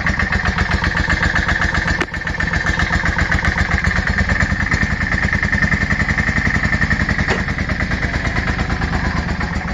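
Yamaha V-Star 650's air-cooled V-twin engine idling steadily, with an even pulsing beat.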